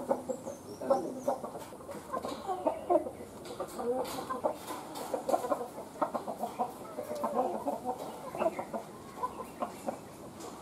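Chickens clucking: many short, overlapping calls at an uneven pace, with scattered sharp clicks among them.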